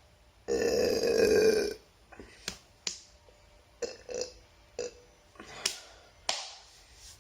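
A person burps once, loud and drawn out for over a second. It is followed by a string of short, sharp mouth sounds.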